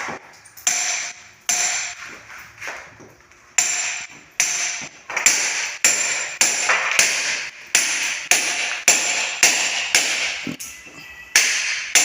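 Hammer striking a steel chisel, chipping away the old cement bed under lifted floor tiles, a series of sharp strikes, each with a metallic ping. The strikes quicken to two or three a second in the second half. The base is being roughened so that fresh cement will grip.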